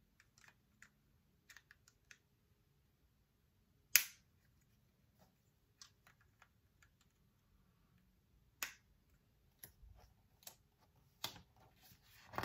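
Plastic building-set pieces being handled and snapped together: scattered faint ticks with a few sharp clicks, the loudest about four seconds in and another just before nine seconds, then a burst of clicking and rattling near the end.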